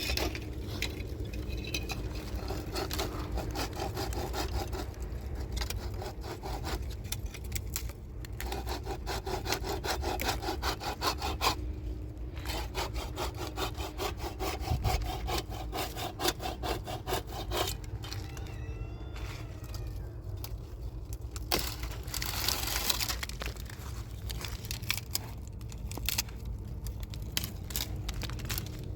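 Hand saw cutting through wood in long runs of quick back-and-forth strokes, with short pauses between the runs.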